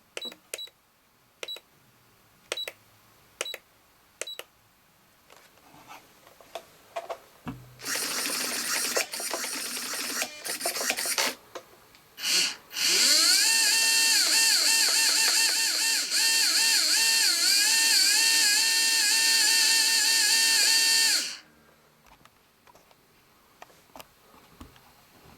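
Radio-control brushless motor run up on the throttle. A short burst of noisy whirring comes first, then a rising whine that settles into a steady tone, wavering up and down for about eight seconds over a harsh grinding hiss, and then cuts off sharply. The owner suspects this is an abnormal noise from an initial defect. A few sharp clicks come before it.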